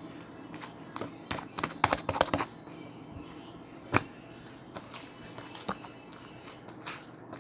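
A series of light clicks and taps, bunched between about one and two and a half seconds in, with one sharp knock about four seconds in, over a low steady background hum.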